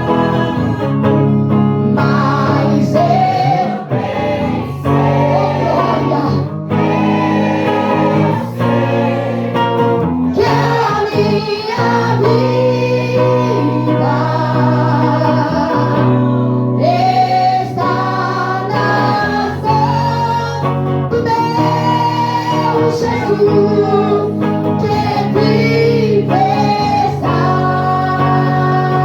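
Live gospel worship song: singing over guitar and other instruments.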